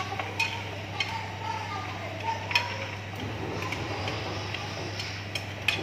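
A cooking utensil stirring meat in a frying pan on an induction hob, knocking against the pan with a few sharp irregular clicks over a steady low hum.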